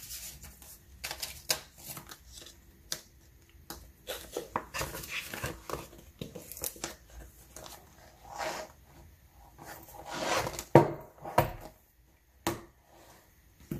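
Paper banknotes and a plastic cash envelope rustling and crinkling as the cash is handled and tucked away. A few sharp clicks and knocks come about eleven and twelve seconds in as the disc-bound binder is closed and handled.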